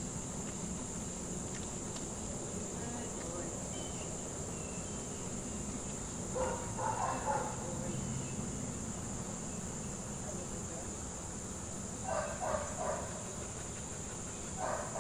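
Steady high-pitched buzz of an insect chorus, unbroken throughout. A distant voice-like call sounds briefly twice, about six seconds in and again near twelve seconds.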